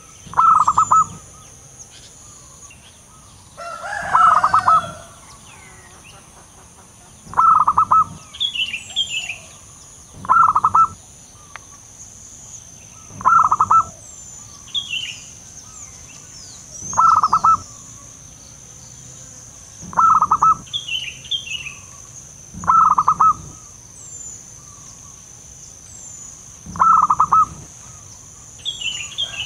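Zebra dove (perkutut) cooing: a short, rapidly pulsed coo phrase repeated about every three seconds. A rougher, longer call comes about four seconds in, while small birds chirp higher between the coos and a steady high whine runs behind.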